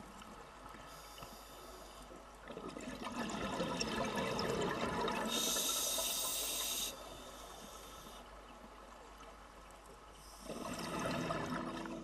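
Underwater water sound: a noisy wash that swells and ebbs, with a brief high hiss about halfway through.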